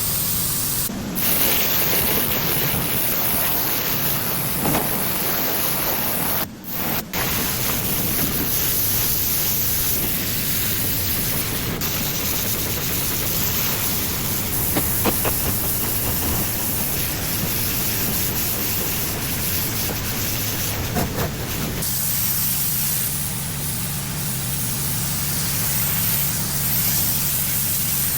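Pressure washer spraying a driveway: a steady loud hiss of high-pressure water on concrete over the low hum of its engine, dropping out briefly twice around six to seven seconds in.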